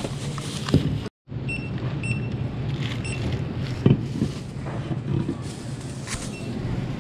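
Grocery checkout: items and cans set down on a counter with sharp knocks, plastic produce bags crinkling, and several short high barcode-scanner beeps between one and three seconds in and again near six seconds, over a steady low hum.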